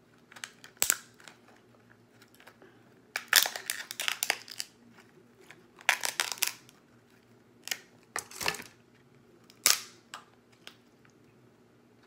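Alaskan king crab leg shell cracking and snapping as it is broken apart by hand: sharp cracks in several bursts, the densest clusters about three and six seconds in.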